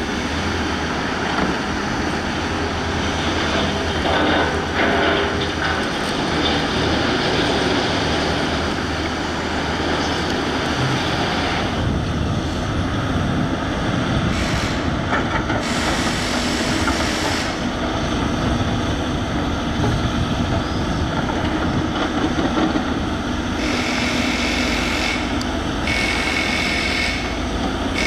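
Volvo EC210B tracked excavator's diesel engine and hydraulics running steadily as it works landfill refuse. Higher-pitched hydraulic or track noise swells in about halfway through and again near the end, with a thin whine in the last few seconds.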